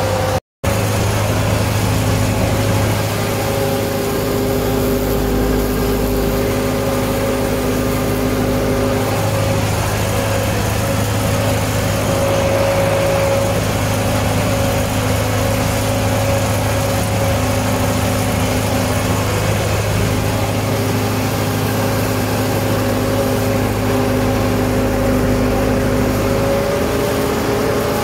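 Belarus MTS-50/52 tractor's four-cylinder diesel running steadily under working load, heard from the driver's seat, while it drives a rotary drum mower through hay grass. The sound cuts out for a moment about half a second in.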